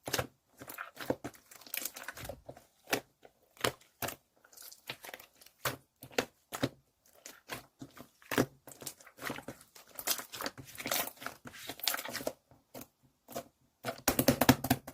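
Clear slime being squeezed and stretched by hand, giving irregular sharp clicks, pops and crackles, with a dense run of crackling near the end.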